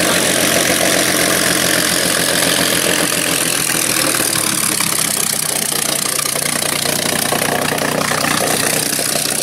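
Spitfire fighters' V12 piston engines running at low power as the aircraft taxi past, a steady, fast, pulsing engine note.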